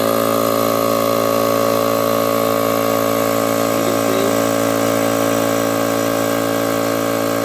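DeWalt twin-stack oil-bath air compressor, a piston-and-ring pump, running just after being switched on: a loud, steady, even hum with several fixed tones and no change in speed.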